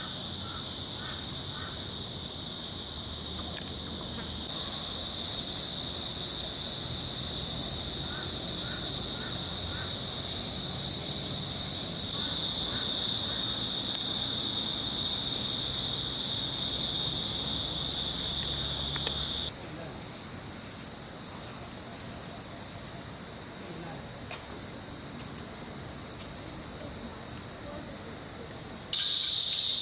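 Steady, high-pitched chorus of forest insects such as crickets. Its loudness and tone jump abruptly a few times.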